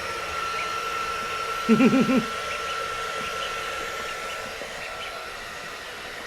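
Hair dryer blowing steadily with a thin high whine that fades near the end, with a brief wavering voice-like sound about two seconds in. Faint short high peeps come through now and then.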